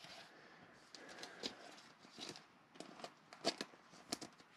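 Faint rustling and a scatter of soft clicks from glossy trading cards being handled and slid into thin plastic penny sleeves.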